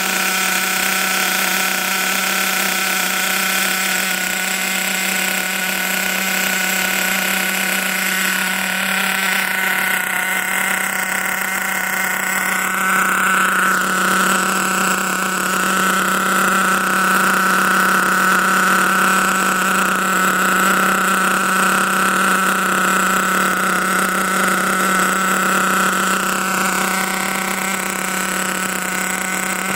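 HPI Trophy Truggy 4.6's small nitro engine running steadily on its stand during break-in, kept below full revs. Its pitch rises a little about halfway through and drops back near the end.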